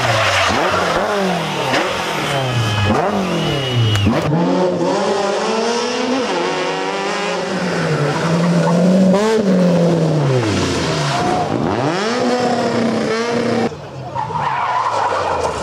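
Rally car engines revving hard, the pitch climbing and dropping sharply again and again through gear changes and lifts, one car after another. A brief high squeal comes about three seconds in, and the engine sound drops away near the end.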